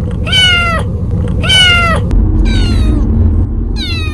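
Young kitten meowing repeatedly: four meows about a second apart, each dropping in pitch at the end, over a steady low rumble.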